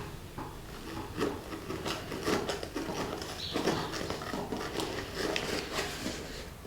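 A cardboard shipping box being handled and opened by hand: irregular scrapes, taps and rustles of packaging.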